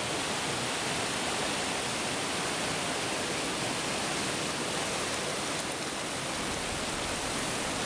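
Mountain stream rushing over rocks in small cascades: a steady, even sound of running water.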